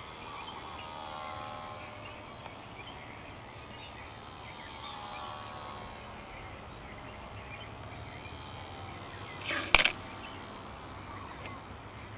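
Faint buzz of the Brown A-23 CO2 motor on a small scratch-built Grumman F4F flying scale model. Its pitch slides down and then up as the plane passes, about a second in and again around five seconds in. A single sharp click comes near the end.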